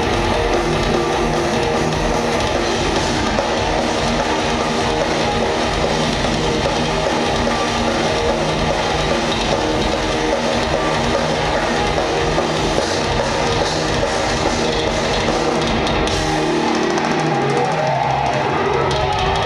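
Live heavy rock band playing: distorted electric guitars over a full drum kit, with keyboards. About three-quarters of the way through, the drums and bass drop out and held notes ring on as the song reaches its end.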